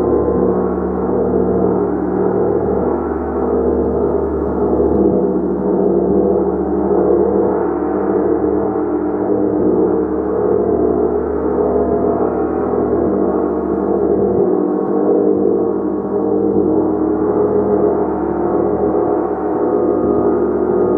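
Gong played continuously in a sustained wash, many overlapping tones swelling and pulsing gently as it is kept sounding.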